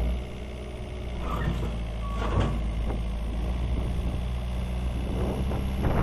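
Komatsu SK815-5N skid steer's diesel engine running steadily, with a couple of sharp knocks and a short high beep about two seconds in.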